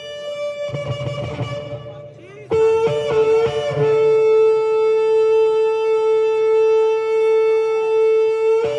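Shofar (ram's horn) blown: a few short broken notes about two and a half seconds in, then one long steady blast held for about five seconds that stops just before the end.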